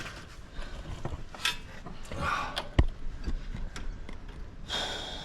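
Scattered metallic clicks and knocks of hand tools and brake parts as a bolt is refitted during a rear brake pad change, with one sharper knock about halfway through.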